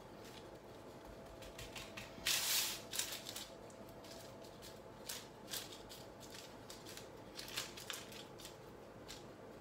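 Baking paper rustling and crinkling in short, irregular bursts as hands work the sealed edge of a double-crust pizza lying on it. The loudest crinkle comes about two seconds in.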